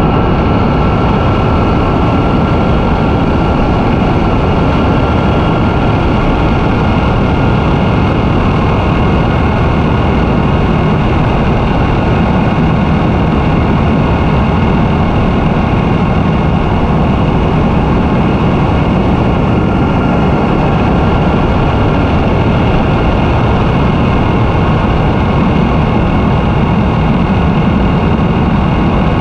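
Yamaha FJ-09 sport-touring motorcycle cruising at a steady speed: its three-cylinder engine running evenly under a loud, constant rush of wind and road noise, with no shifting or revving.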